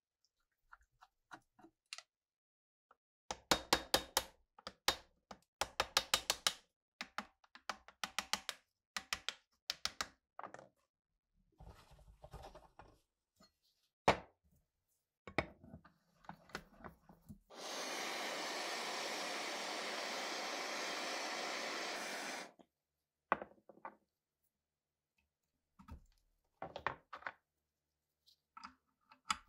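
Quick runs of sharp metal taps and knocks, several a second, as rust-seized RPG-7 parts are worked with a flat chisel-like tool. About midway a steady hiss lasts about five seconds, followed by a few more scattered knocks.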